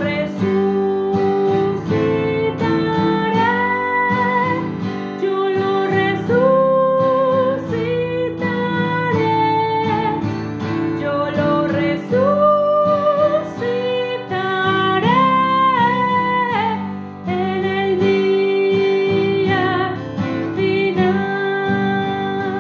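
A woman singing a Spanish communion hymn with long held notes, accompanied by a strummed acoustic guitar.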